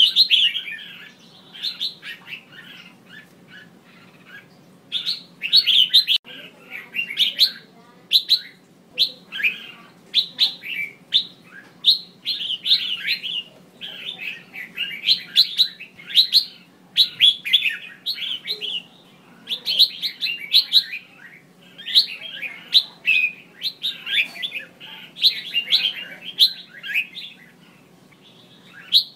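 Female red-whiskered bulbul giving quick bursts of sharp, high chirping calls, phrase after phrase with short pauses, the kind of female call used to stir males to sing.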